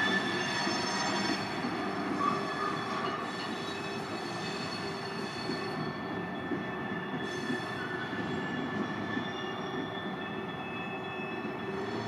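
Freight train cars rolling slowly through a track junction, their steel wheels squealing against the curved rail in several steady high tones held at once over a continuous rumble of the train.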